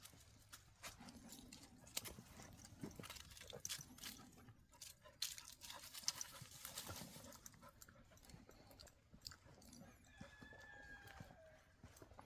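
Border collie giving a high, whistle-like whine from excitement, a short call whose pitch falls, near the end, amid faint clicks and knocks.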